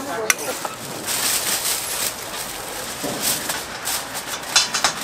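Aluminium foil being folded over a takeaway box and crinkling, together with a plastic bag rustling: a dense, uneven crackle from about a second in, after a single sharp click near the start.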